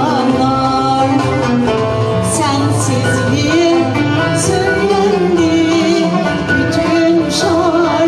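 A woman singing a Turkish classical (Türk sanat müziği) song in makam Hüseyni, her melody wavering with vibrato, accompanied by a small ensemble of violin, cello and kanun.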